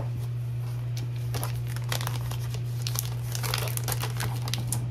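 Clear plastic sleeve crinkling in the hands as sticker sheets are handled, a run of small crackles throughout, over a steady low hum.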